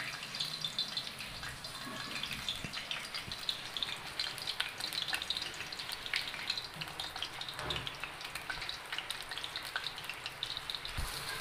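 Lauki kofta balls of grated bottle gourd and besan deep-frying in hot oil in a kadai: a steady sizzle, thick with tiny crackles and pops.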